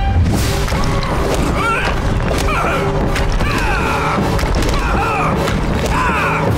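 Cartoon earthbending fight sound effects: rock slabs thudding and crashing, with a low rumble under background music.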